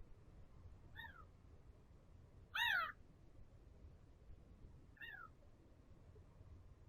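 Three short animal calls, each sliding downward in pitch, the middle one the loudest and longest.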